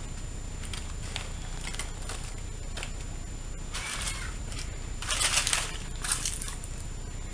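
Dry, charred corn husks and aluminium foil wrapped around a baked fish rustling and crinkling as they are handled and pulled open. It comes in short scattered bursts, the loudest a little past halfway.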